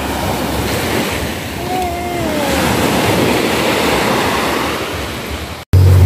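Small sea waves breaking and washing up a sand-and-pebble shore: a steady hiss of surf. Near the end it cuts off abruptly and background music begins.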